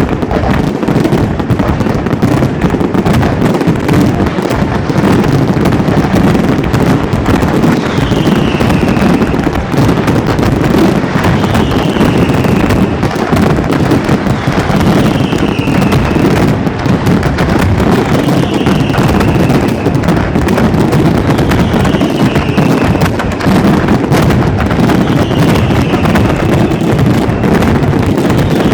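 Fireworks display firing a dense, continuous run of bangs and crackling with no letup. From about eight seconds in, a short falling whistle repeats about every three and a half seconds.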